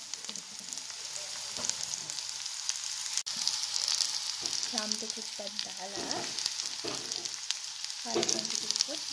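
Hot oil sizzling and crackling with small pops as onions, garlic, green chillies, rampe (pandan) and curry leaves fry in a pot for a curry tempering. The sizzle swells for a moment about four seconds in, as the leaves go in.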